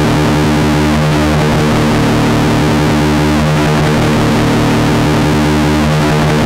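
Loud, steady noise-music drone from a synthesizer run through distortion and effects pedals: layered sustained low tones under a dense hiss.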